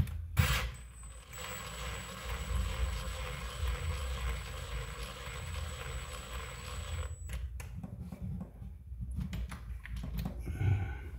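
Power screwdriver running slowly for about six seconds with a steady whine, driving a screw into plastic threads on an RC car's suspension arm, followed by light handling sounds.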